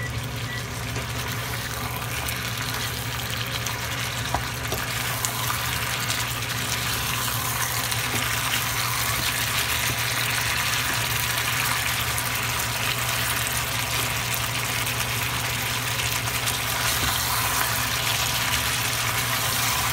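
Chicken pieces sizzling in a nonstick frying pan as the juices they have released cook off, stirred now and then with a spatula. The sizzle grows louder over the stretch.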